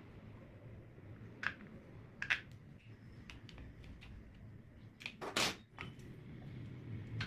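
A few separate sharp clicks and knocks, then a louder, half-second scrape or rattle about five seconds in, like parts being handled; no drill motor is running.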